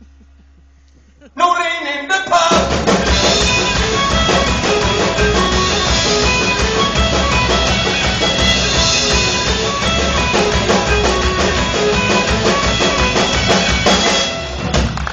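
Live band with fiddle, guitars and drum kit, playing loud, fast music. It starts abruptly about a second and a half in after a near-quiet moment and dips briefly near the end.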